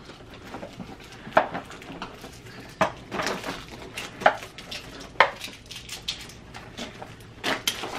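Plastic Play-Doh tubs and toy packaging being handled and opened: scattered light clicks and clacks, with a few sharper ones about a second apart.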